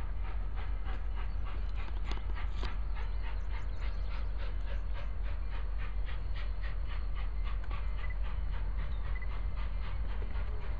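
Union Pacific 844, a 4-8-4 steam locomotive, working toward the listener, its exhaust chuffing in a quick, even beat of about four a second over a steady low rumble.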